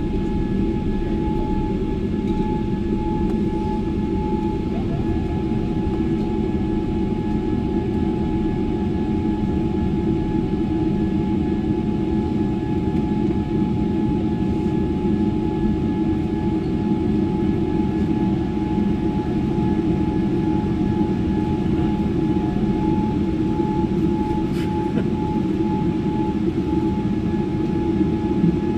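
Steady cabin rumble inside a Boeing 787-10 taxiing after landing, its engines at idle, with a thin high whine held on one pitch.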